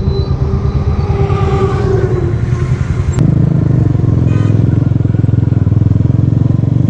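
Motorcycle engine running under way, heard from the rider's seat, its low pulsing beat getting louder and fuller about three seconds in.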